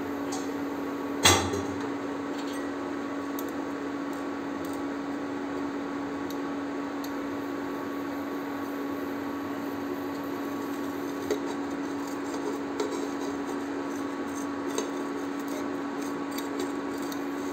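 Steady hum from an induction cooktop heating a dosa tawa, with one sharp clack of a metal spatula against the pan about a second in and a few light taps of the spatula on the pan later on.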